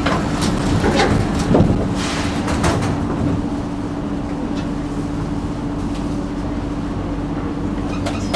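Singapore MRT train doors sliding shut, with a few clunks and knocks in the first three seconds as the door leaves meet and lock. Then the steady hum of the train carriage with one held tone.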